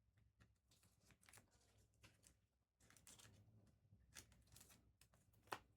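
Faint rustling and soft clicks of trading cards and pack wrappers being handled, with one sharper click near the end.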